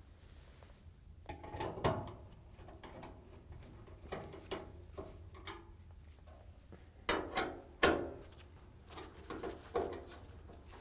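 Screws being driven with a hand nut driver into a clothes dryer's sheet-metal front bulkhead: scattered clicks, clinks and light knocks of the tool, screws and gloved hands against the metal, with a cluster of sharper clicks about seven seconds in.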